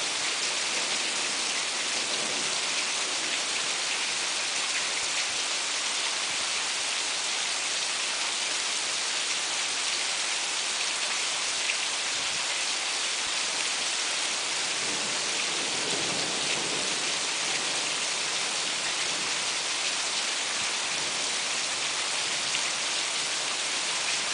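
Rain falling steadily in a thunderstorm, an even, unbroken hiss.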